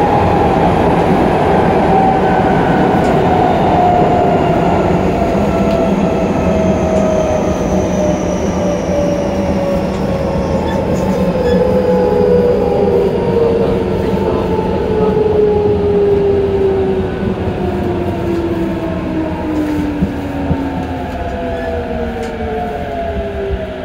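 Tokyo Metro 08-series subway car running, heard at the gangway between cars: steady wheel and rail noise under several traction-motor tones that fall slowly in pitch as the train slows. There are two light clicks about twenty seconds in.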